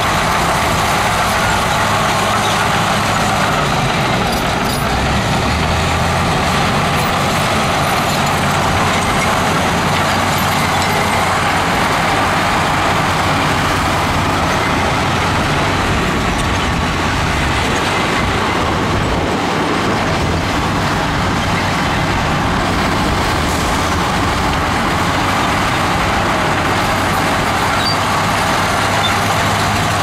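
Heavy earthmoving machinery at work, its diesel engine running steadily, with a constant low engine hum under a dense mechanical din.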